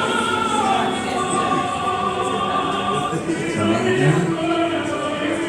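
A recorded song playing over a loudspeaker, with a singer holding long, drawn-out notes.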